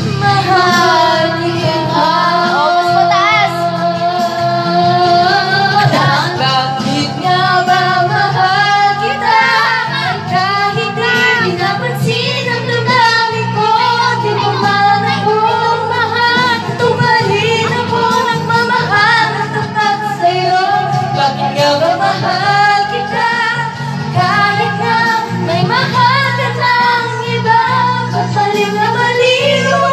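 Young girl singing a song into a microphone over backing music, with long held and gliding notes.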